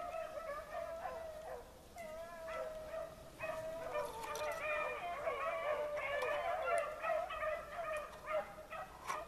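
A pack of beagles baying, several hound voices overlapping in long, wavering notes that thicken a few seconds in: the pack in full cry running a rabbit. A few sharp clicks near the end.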